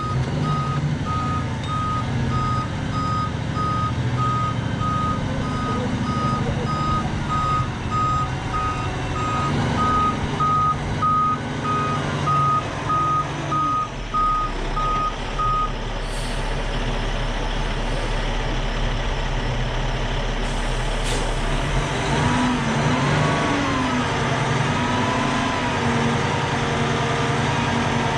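Heavy diesel vehicle's engine running with its back-up alarm beeping steadily, about twice a second. The alarm stops about 16 seconds in and the engine keeps running; near the end its pitch rises and falls.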